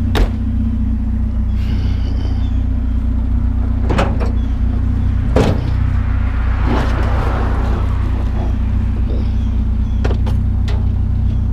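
Pickup truck's engine running with a steady low hum, heard from inside the cab, with a few sharp clicks and knocks and a brief swell of noise about two-thirds of the way through.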